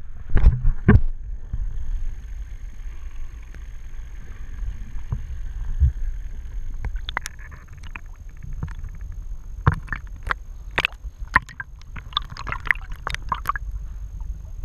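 Muffled underwater noise with a steady low rumble on the camera's waterproof housing, then, about halfway through, water splashing and slapping around the camera as it rides at the ocean surface.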